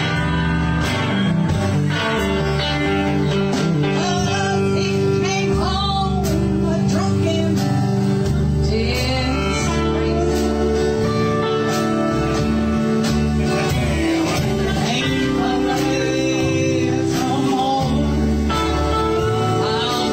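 Live honky-tonk country band playing: steel guitar, acoustic guitar and electric bass over a steady beat.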